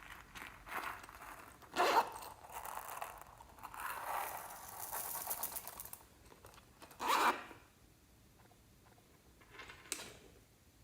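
Slime being stretched and worked by hand, tearing and crackling in several bursts: sharp ones about two and seven seconds in, a longer crackly stretch in the middle, and a fainter one near the end.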